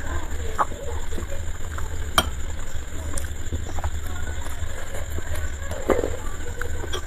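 Eating sounds: chewing and mouth noises, with a sharp clink of a metal spoon against a ceramic bowl about two seconds in and a few lighter clicks, over a steady low hum.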